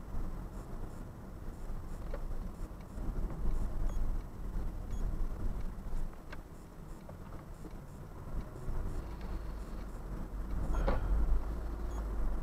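A car's low engine and road rumble heard from inside the cabin while it waits in traffic. The sound grows louder about eleven seconds in as the traffic ahead moves off.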